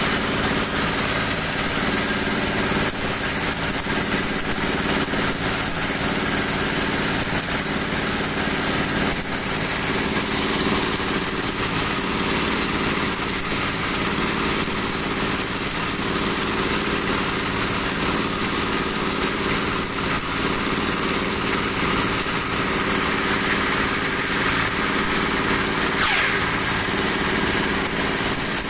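Broom-handle dowel machine running steadily: a constant motor hum with a high hiss over it.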